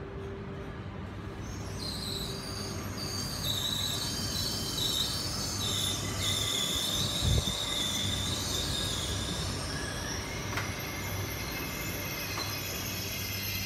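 Regional multiple-unit train running slowly alongside the platform, with a high, wavering brake squeal for several seconds as it slows. A dull thump comes midway, the squeal gives way to a short rising tone, and a steady low hum continues under it all.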